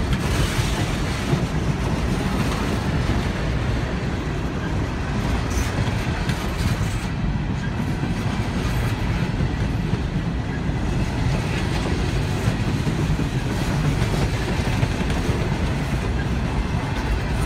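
A Norfolk Southern coal train's cars rolling slowly past, running empty by the uploader's reckoning: a steady low rumble of steel wheels on rail that never lets up.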